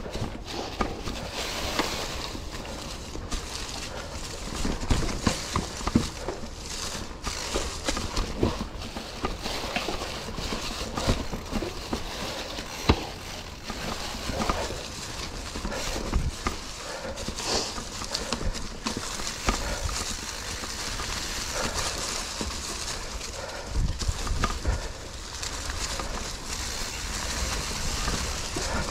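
Mountain bike riding over a rocky trail: irregular knocks and clatter of the tyres, chain and frame striking rock, over a steady low rumble.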